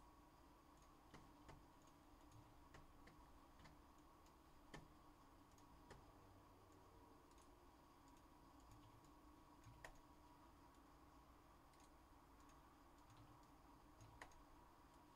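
Near silence: room tone with a faint steady hum and a few scattered faint clicks at irregular intervals.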